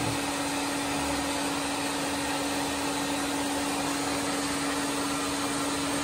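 Reverse-osmosis water purification unit running, its pump giving a steady whirring hum with one constant tone over an even hiss.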